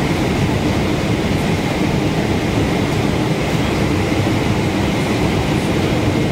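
Steady roar of a Boeing 777-200ER's engines and airflow heard inside the passenger cabin on final approach to landing.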